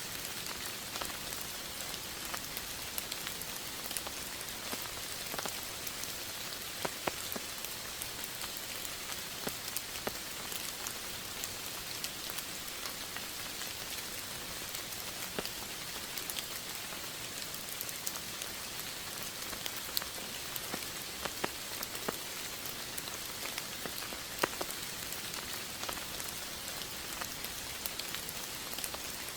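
Steady rain: a constant hiss of falling rain with many scattered, sharp drop ticks.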